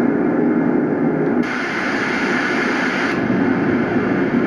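Sleep sound machine playing a steady hiss-like noise track through its small speaker. It switches to a differently toned hiss about one and a half seconds in, and again about three seconds in, as its tracks are stepped through.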